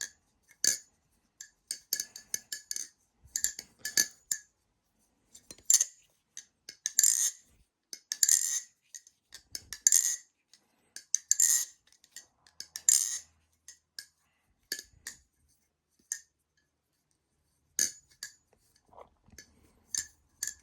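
LBY Kite V1.5 balisong being flipped: its handles clack together and swing against the blade in quick, irregular runs of sharp metallic clicks, busiest in the middle and sparser near the end.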